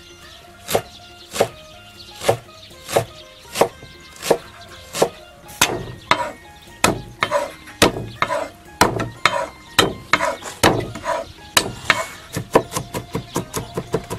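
Chinese cleaver chopping ginger and garlic on a wooden chopping board: evenly spaced single chops, about one every 0.7 s, turning into a quick run of about four chops a second near the end. Faint background music underneath.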